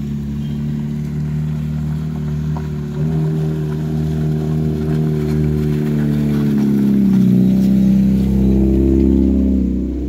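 Truck engine running hard on a steep climb. It gets louder about three seconds in, is loudest near the end, and its pitch wavers in the last couple of seconds.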